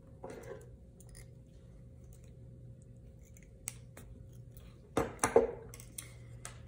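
Small metal pliers handled while hand-stitching leather: clicking as they grip a needle and pull it through the leather, then clattering back onto the tabletop. The loudest clatter and scrape comes about five seconds in.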